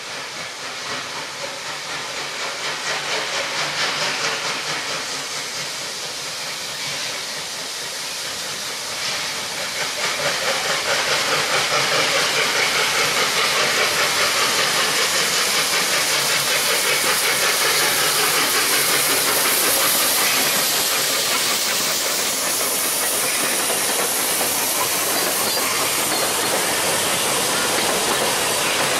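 NGG16 Garratt steam locomotive working past, a loud hiss of steam with a quick steady beat running through it. It builds about ten seconds in as the engine draws level, then its carriages roll by.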